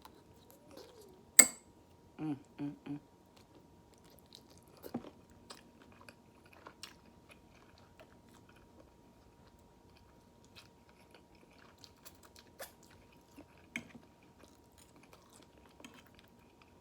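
Close-miked chewing with scattered small mouth clicks and smacks. There is one sharp click about a second and a half in, then three short hums just after.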